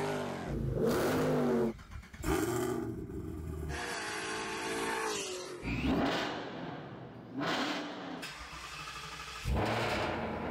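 Car engines revving hard in a string of short clips cut together, so the engine note rises, falls and changes abruptly every second or two.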